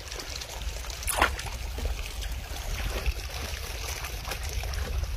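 Shallow river water splashing and trickling as a hand works in it, over a steady low rumble, with one sharper sound about a second in.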